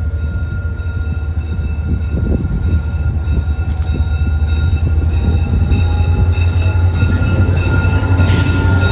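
Diesel train passing: a heavy steady low rumble with a faint steady high whine over it, a few light clicks, and a short hiss near the end.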